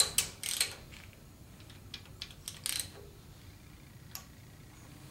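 Ratchet clicking in short runs as a rocker arm adjusting nut on a Chevy 350 small-block is turned. A quick cluster of clicks comes in the first second, then scattered clicks after that.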